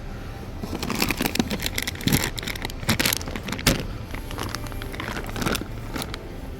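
Large plastic bag of prunes being taken off the shelf and handled, its packaging crinkling and rustling in a string of irregular crackles, over the steady hum of the store.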